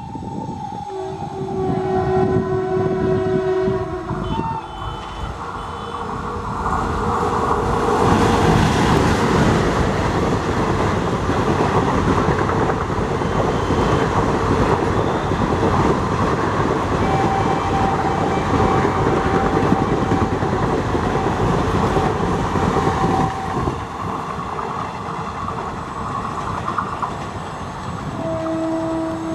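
Twin-tone horn of a WCAM-2P electric locomotive, two notes sounding together in blasts about a second in and again near the end, with a long single-note horn in the middle. Between them, the loud steady rush and rattle of a passenger train passing on the rails.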